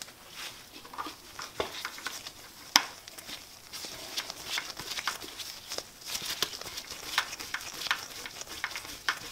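Screwdriver and gloved hands working at the lathe's RPM gauge face panel, setting its small screws: irregular light clicks, ticks and scraping, with one sharper click about three seconds in.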